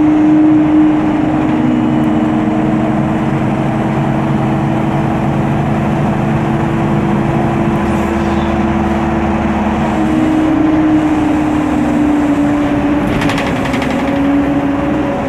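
Interior of a MAN Lion's City city bus on the move: its MAN E2876 CNG engine and cooling fan run with a steady whine, while a second tone rises in pitch about two-thirds of the way in, then falls away near the end as the bus accelerates and eases off. A short hiss sounds near the end.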